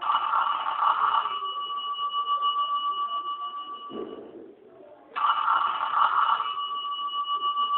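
Oppo mobile phone ringtone imitating a ringing telephone: an electronic trilling ring on two steady high tones, sounding twice, each ring about four seconds long with a short pause between.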